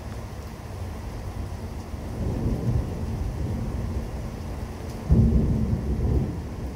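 Thunder rumbling in a severe thunderstorm, building about two seconds in, then a sudden louder thunderclap about five seconds in that rolls away over a second or so.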